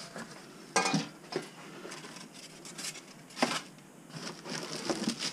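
Stainless steel wok lid clanking as it is handled and set down, with a few sharp metal knocks, the loudest about a second in. Plastic wrapping rustles near the end.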